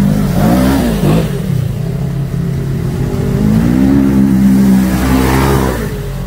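Side-by-side UTV engine revving up and down as it ploughs through deep creek water, with water splashing and surging off the front. The revs and splashing swell about a second in and again from about three to six seconds, then drop away.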